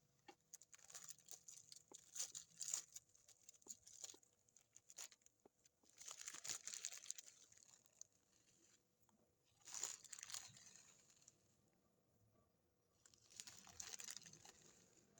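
Soft rustling and crinkling in several short bursts, with scattered light clicks and taps between them, as things are handled.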